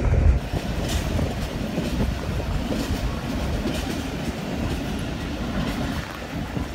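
Passenger train running along the track, heard from an open carriage window: a steady rumble of wheels on rails, with a few clicks from the rail joints.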